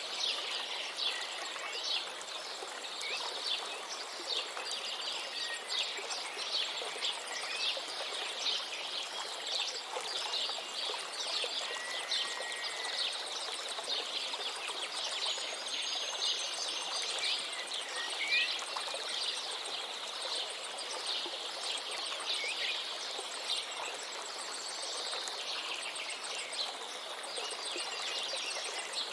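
Many small birds chirping and calling in quick, overlapping notes, with a few sliding whistled calls, over the steady rush of a flowing river.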